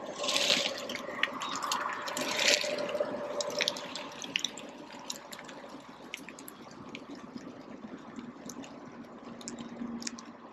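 Running, splashing water with scattered drips, surging louder twice in the first few seconds.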